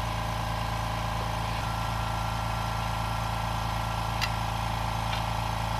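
Air compressor running steadily with an even mechanical hum, and a single light click about four seconds in.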